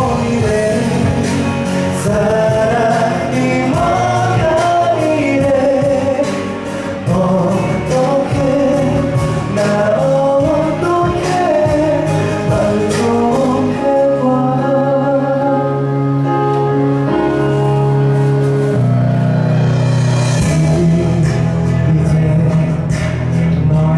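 Man singing live into a handheld microphone over instrumental accompaniment, the melody rising and falling in long held phrases; steady low bass notes come in about halfway through.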